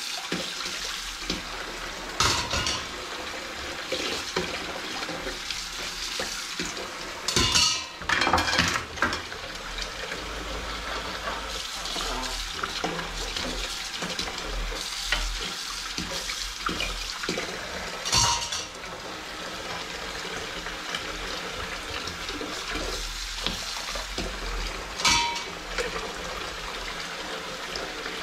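Kitchen tap running steadily into a sink while dishes are scrubbed by hand with a sponge, with a few sharp clinks and clatters of dishes and cutlery knocking in the sink, a cluster of them about a third of the way in.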